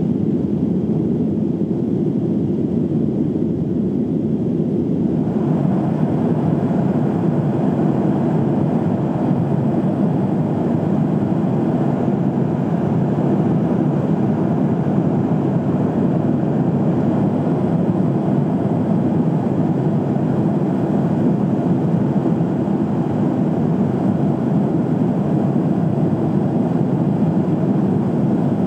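Steady airliner cabin noise in flight: the even rush of the jet engines and airflow heard from inside the passenger cabin, becoming a little brighter about five seconds in.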